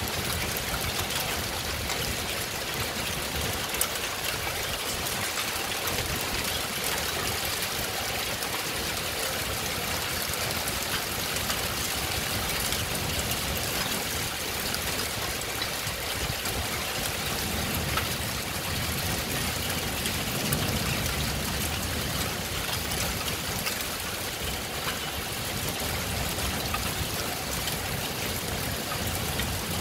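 Heavy rain falling steadily, with a few sharp ticks of drops striking hard surfaces.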